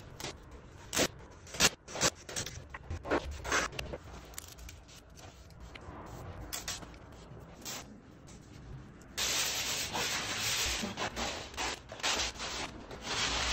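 Masking tape being torn and pulled off the roll and pressed onto a wooden window frame: short crackly rips and taps, then a louder steady rasping from about nine seconds in.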